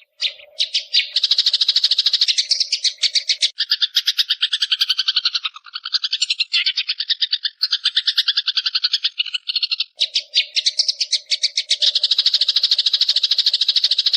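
Long-tailed shrike (cendet) giving a continuous fast chattering 'ngekek' song, about ten sharp notes a second, shifting in pitch and rhythm several times.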